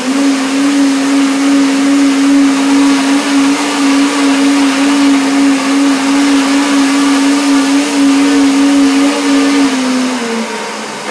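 High-speed countertop blender running at full speed, blending a thick avocado, blueberry and rocket smoothie with added water. The motor holds a steady, loud hum over a rushing hiss, then slows and winds down about ten seconds in.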